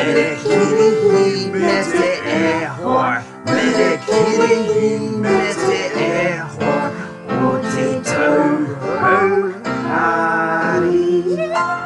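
Voices singing a Christmas song with instrumental accompaniment.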